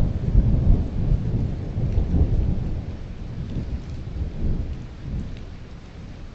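Thunder rumbling in deep rolling swells, loudest in the first second, then dying away, over steady rain.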